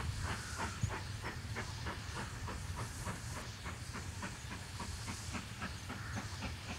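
GWR Manor class two-cylinder 4-6-0 steam locomotive working a train, its exhaust beating evenly at about four chuffs a second over a low rumble.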